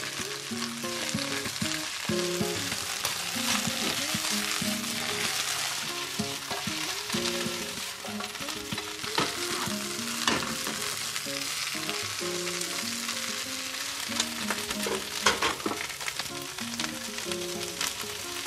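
Leafy greens sizzling in oil as they are stir-fried in a frying pan on a gas stove, with a few sharp clicks of chopsticks against the pan. A soft melody plays underneath.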